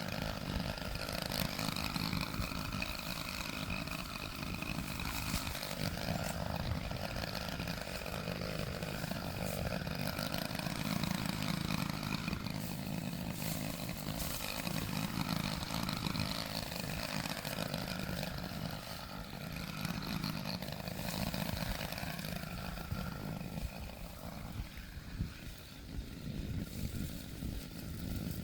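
Gas chainsaw running steadily, easing off briefly near the end.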